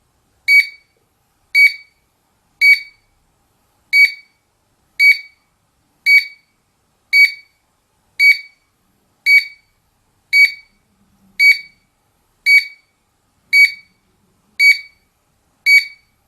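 GSM alarm control panel's buzzer counting down the exit delay as the system arms: fifteen short, identical high beeps, about one a second.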